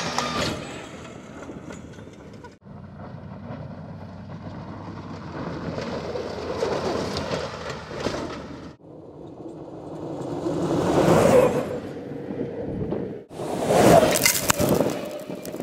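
Electric off-road race buggy with twin 9-inch DC motors driving hard over sand and gravel in several short clips. There is no engine note, just tyre, stone and wind noise with a faint steady whine, swelling loudest as it passes close by about eleven and fourteen seconds in.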